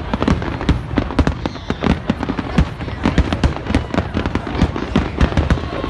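Dense, rapid barrage of firework bangs and crackles, many per second and without a break, typical of a display's closing finale.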